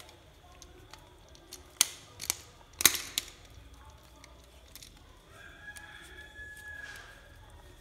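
Sharp metal clicks of a screwdriver on the terminal screws of a socket outlet, four of them between about two and three seconds in. From about five seconds in, a rooster crows faintly in the background, one long drawn-out call.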